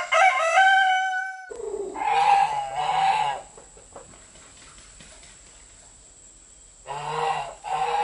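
Domestic geese honking: two honks about two and three seconds in, then two more near the end, with a quiet stretch between. It opens on a higher call rising in steps that breaks off abruptly about a second and a half in.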